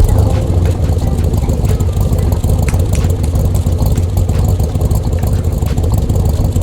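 A loud, steady engine-like rumble that starts suddenly and runs on evenly.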